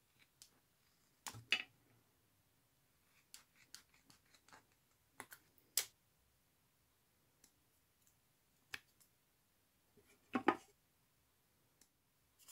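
Utility knife scoring and cutting a foil-faced asphalt (STP) damping sheet, and hands handling the cut pieces: faint, scattered clicks and short scrapes, with the loudest clusters about a second and a half in and near the end.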